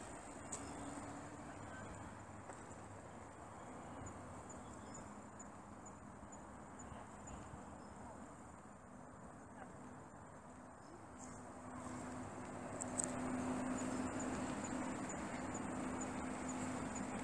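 Insects chirping in a thin, high, evenly ticking trill. About two-thirds of the way in, a low steady hum and a broad rushing noise swell up and become the loudest sound.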